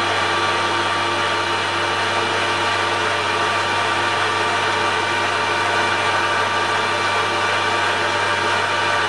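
Metal lathe running steadily at speed, a constant motor hum with a steady whine from the spindle and gearing.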